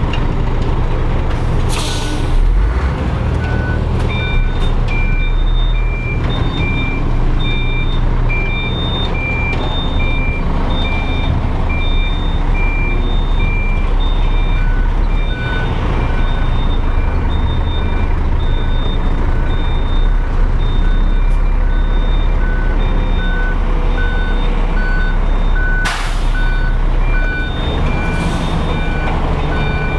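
Bitrem (B-double) truck's diesel engine running while it reverses, under a reverse alarm beeping steadily from about four seconds in. A short air-brake hiss comes about two seconds in and again near the end.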